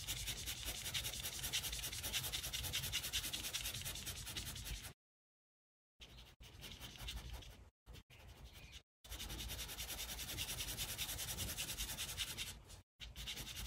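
Fast back-and-forth shading strokes of a drawing tool scratching on paper. They stop for about a second near the middle, then go on with a few short breaks.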